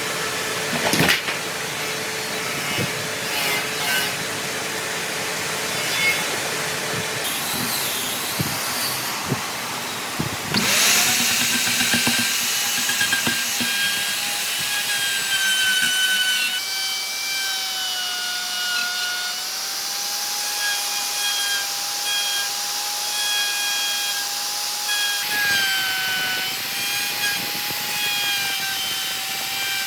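Handheld power tool working wood. There are scattered knocks and scraping at first; about a third of the way in its motor starts a steady whine, the pitch dipping slightly at times as it bears into the wood.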